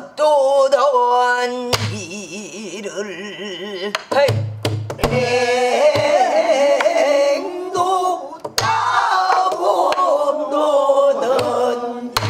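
Woman singing pansori with a wide, wavering vibrato on long held notes, accompanied on a buk barrel drum: deep palm thumps on the drumhead and sharp stick strikes at irregular intervals.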